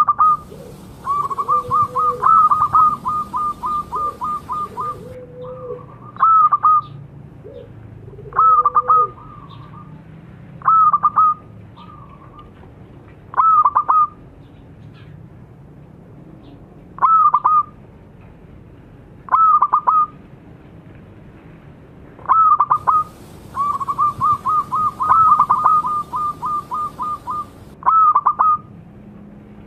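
Zebra dove (perkutut) cooing: twice, near the start and again near the end, a long fast run of a dozen or so clipped coos, with short two- or three-note coos every couple of seconds between. A lower, softer coo sounds several times in the first third.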